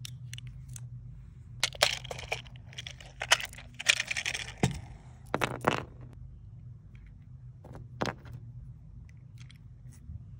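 Metal clicks and clinks as a Mossberg Brownie four-barrel .22 LR pistol is handled and opened and small brass .22 cartridges are picked up and loaded, in a handful of short clusters over a steady low hum.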